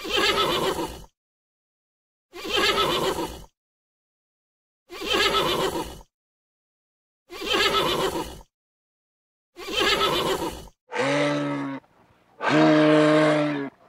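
A horse whinnying, each call about a second long, five times at even spacing of about two and a half seconds, the calls alike. Near the end, two low, steady-pitched moose calls, each about a second long.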